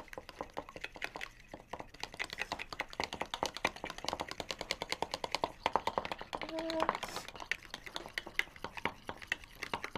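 Eggs being whisked with a metal fork in a plastic bowl: a fast run of light clicks as the tines strike the bowl many times a second.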